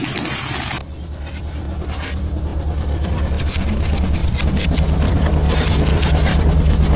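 Storm noise on the deck of a fishing boat at sea: wind, sea and spray with a deep rumble underneath that grows louder. The sound changes abruptly about a second in.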